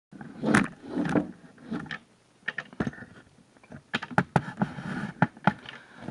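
Handling noise from work on a wall light switch: irregular sharp clicks and knocks of small hard parts and tools, with rustling in between.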